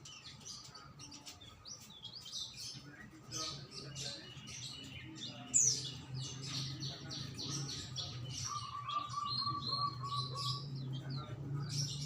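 Songbirds chirping and singing: many quick high chirps throughout, one loud falling note about halfway through, and a run of evenly repeated lower notes about two-thirds of the way in, over a steady low hum.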